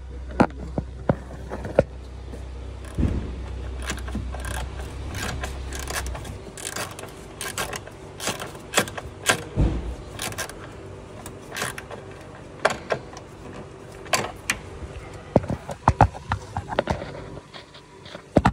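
Hand tools clicking, clinking and scraping against metal in irregular short knocks as a bolt holding a line is tightened back.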